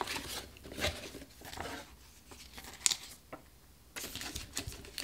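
Cardboard camera box being opened and handled: short rustles and scrapes of cardboard flaps and paper, with one sharp click about three seconds in and denser paper rustling near the end as the printed paperwork is lifted out.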